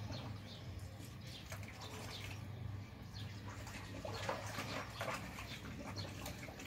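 A dog splashing and sloshing water in a shallow plastic basin, in irregular short splashes, over a steady low hum.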